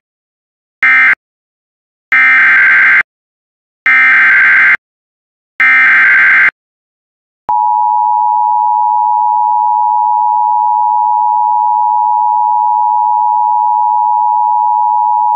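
Emergency Alert System tones: the last short end-of-message data bursts of one alert, then three longer shrill warbling header data bursts about a second and a half apart announcing the next alert, followed about 7.5 s in by the steady, loud attention tone that holds on.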